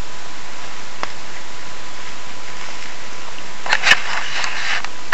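Steady hiss with a faint steady high tone, a single click about a second in, and a short burst of crackling handling noise near the end as the camera is shifted against the tree and leaves.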